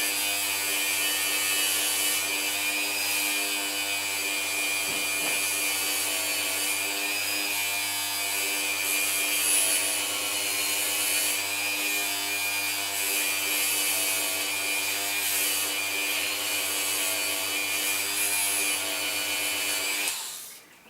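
Dremel-type rotary tool running steadily while buffing steel lock picks with metal polish, its pitch wavering slightly under load; it winds down and stops near the end.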